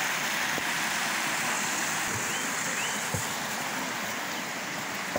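Steady rushing of a mountain stream, with a few soft knocks midway.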